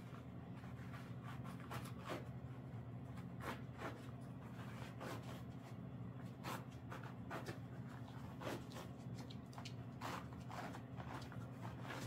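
Compression bandage rustling and scratching in irregular short strokes as it is wound around a dog's splinted leg, over a steady low hum.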